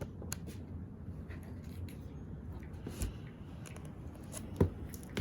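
Quiet handling of books: light rustling with a few faint clicks, and a sharper knock about four and a half seconds in.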